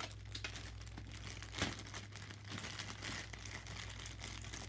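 Packaging crinkling and rustling as a merch bag is unwrapped by hand, in irregular crackles with one louder crackle about a second and a half in, over a low steady hum.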